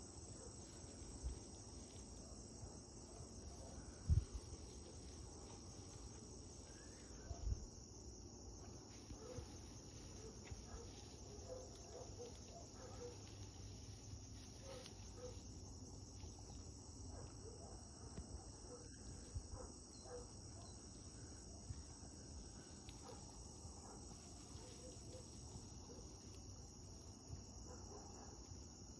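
Steady, faint chorus of crickets in a weedy field, with two low thumps about four and seven and a half seconds in.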